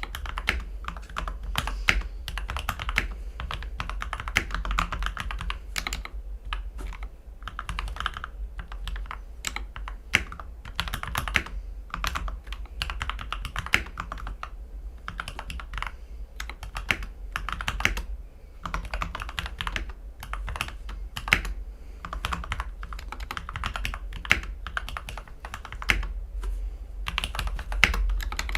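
Mechanical keyboard with lubed and filmed Gateron Ink V2 Black linear switches on an aluminium plate, typed on continuously in quick, uneven runs of keystrokes. The board has tape and PE-foam mods.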